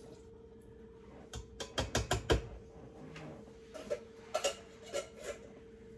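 A tin can and a utensil clink and knock against an Instant Pot's inner pot as canned diced tomatoes are scraped in. There is a quick run of knocks about two seconds in, then a few scattered ones, over a faint steady hum.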